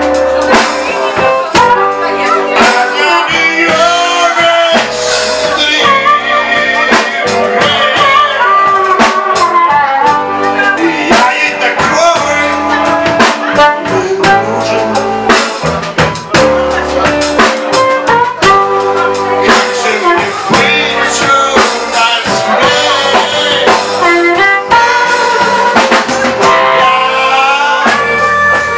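Live blues-rock band playing loudly: electric guitars and a drum kit, with harmonica and singing over them.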